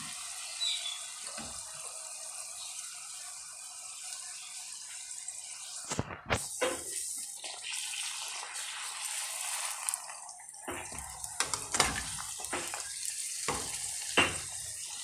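Golgappa puris deep-frying in hot ghee, a steady sizzle. A metal slotted spoon knocks and scrapes against the kadai about six seconds in, then several times in the last few seconds.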